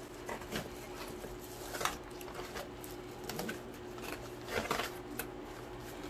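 Plastic wrapping and cardboard rustling and crackling as a packed item is pulled out of a box: a string of short, irregular scrapes and crinkles over a steady low hum.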